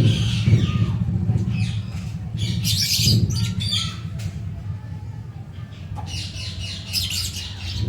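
Birds chirping and squawking in short bursts over a steady low hum.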